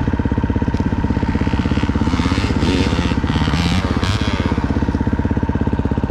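KTM 350 XC-F dirt bike's single-cylinder four-stroke engine running with a fast, even pulse, with a few rushing bursts of noise about halfway through.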